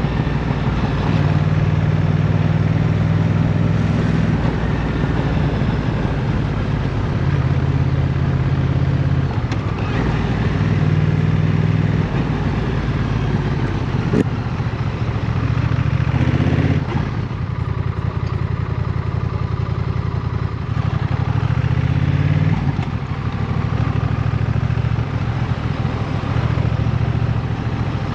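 Honda CMX1100 Rebel's parallel-twin engine running under way, its note stepping up and down with throttle and gear changes. The revs climb around two-thirds of the way through and again near the end as the bike accelerates, with a single sharp click about halfway through.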